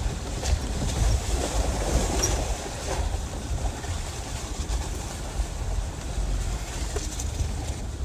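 Land Rover LR4 crawling over a rough, rocky off-road trail, heard from inside the cabin: a steady low rumble with a few scattered knocks and rattles.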